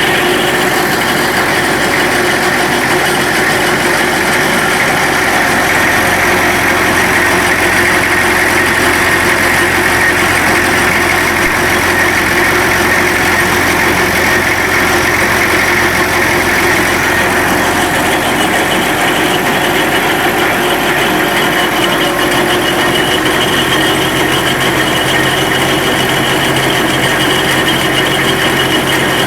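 Perkins P4 four-cylinder diesel engine of a John Fowler road roller, running steadily at idle. Its tone shifts slightly about two thirds of the way through.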